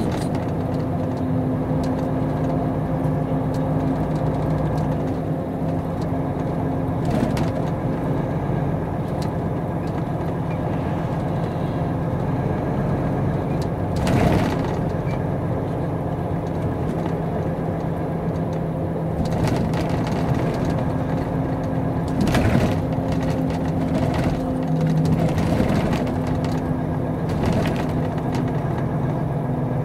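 Volvo FH truck's diesel engine running steadily while driving, heard from inside the cab, with a few brief knocks from the cab or load.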